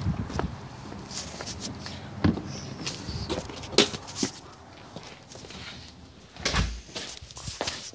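Irregular knocks, clicks and rubbing of a handheld phone being moved and handled, with a heavier low thump about six and a half seconds in.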